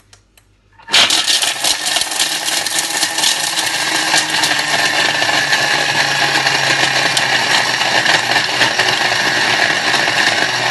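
Thermomix TM6 food processor running at top speed (speed 10), its blades chopping dark chocolate. It starts about a second in: a loud, steady whir with a dense rattle of chocolate pieces.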